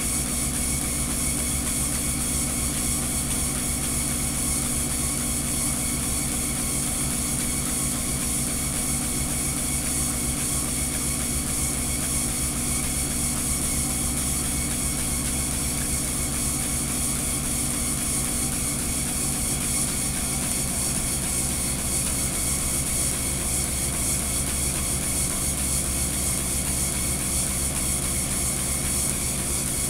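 Treadmill running steadily: an even motor hum and belt noise, its tone shifting slightly about twenty seconds in.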